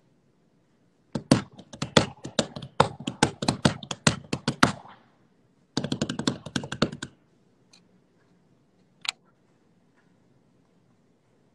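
Quick runs of sharp taps and clicks close to the microphone, fingers tapping on the handheld phone. The first run lasts about three and a half seconds. A second, shorter run follows after a short pause, and there is one lone click near the end.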